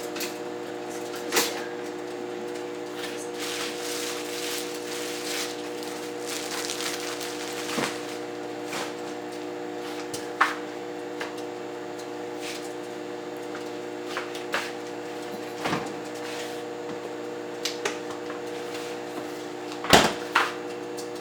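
Microwave oven running with a steady hum while bacon cooks inside. Scattered sharp clicks and knocks of kitchen handling, the loudest two close together near the end.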